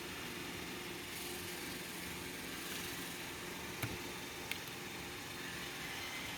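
Indoor HVAC blower fan running steadily, a low hum under a hiss of moving air, with two faint ticks a little after the middle.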